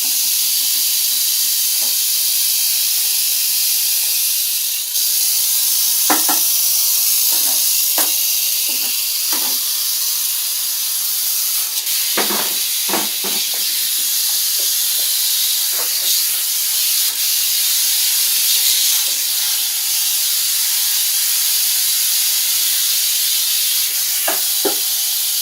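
Rattlesnake shaking its tail rattle in a steady, continuous high buzz, with a few soft knocks over it.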